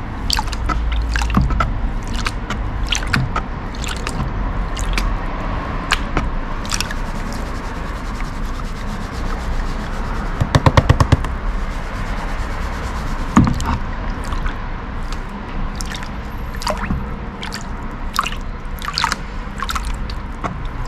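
Water splashing and dripping as gold-bearing gravel is washed, with scrapes and clicks over a steady low hum. A quick run of sharp taps comes about halfway through.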